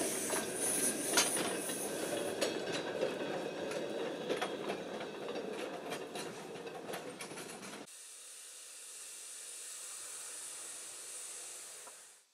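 Small park-railway train's open wagons rolling past on the narrow-gauge track, wheels clicking and rattling over the rail joints, with a high hiss over it. About 8 s in the sound cuts to a quieter steady hiss, which fades out near the end.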